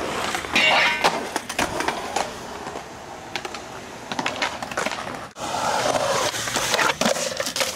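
Skateboard wheels rolling on concrete, with sharp clacks of the board, the loudest just after a second in. The sound breaks off abruptly about five seconds in and returns as louder rolling from a closer board.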